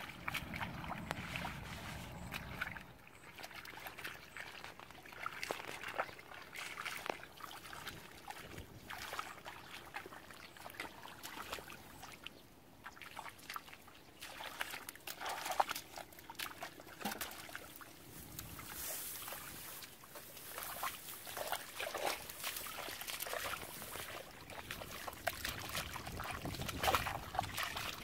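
Hands and feet sloshing and splashing through shallow muddy water, in irregular scattered splashes.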